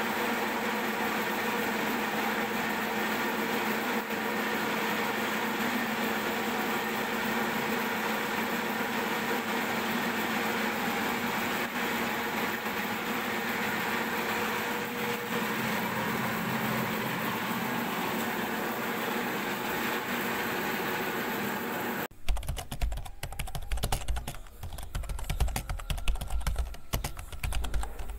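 Soybean splitting and dehulling machine running steadily with a constant hum, as split soybeans feed down its chute. About 22 seconds in this gives way suddenly to rapid, irregular clicking with low thuds.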